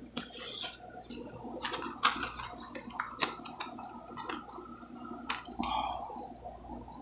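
Scissors snipping into a hard plastic clamshell package, with irregular sharp snips, cracks and crinkling of the stiff plastic.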